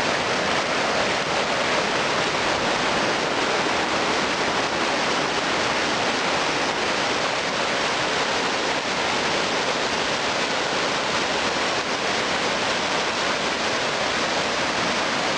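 Rushing river water: a steady, unbroken rush of flowing water.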